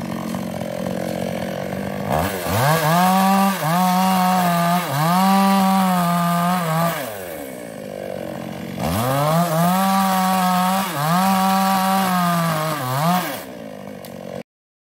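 New West 628 two-stroke chainsaw cutting felled sengon logs: two runs at full throttle of about five seconds each, the pitch dipping briefly a few times during each, with the engine idling before and between them. The sound cuts off suddenly near the end.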